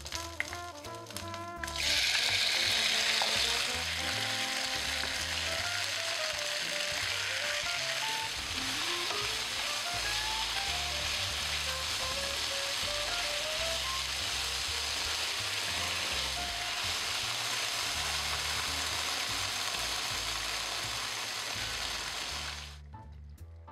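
Diced chicken with dried chilies, garlic, ginger and onion sizzling loudly as they stir-fry in hot oil in a nonstick pan. The sizzle grows louder about two seconds in and cuts off abruptly near the end. Soft background music plays underneath.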